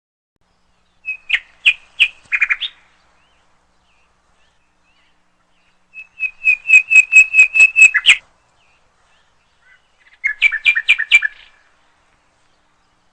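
A bird chirping in three quick bursts of rapid, sharp chirps, with short pauses between them; the middle burst is the longest, about ten chirps in two seconds.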